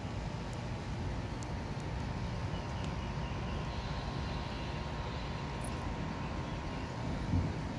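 Steady low rumble of background noise with no distinct source, and a brief low thump about seven seconds in.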